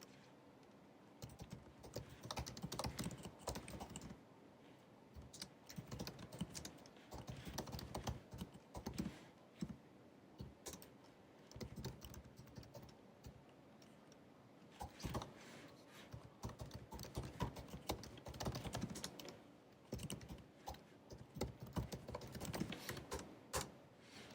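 Typing on the built-in scissor-switch keyboard of a 2019 16-inch MacBook Pro: quick runs of soft key clicks in bursts, with brief pauses between them.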